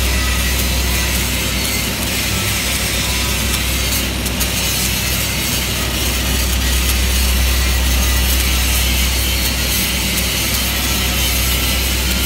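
Shielded metal arc (stick) welding: the electrode burns in a steady arc along a corner joint on steel plate, giving a continuous crackling sizzle with a sharper crackle about four seconds in. A steady low hum runs beneath it.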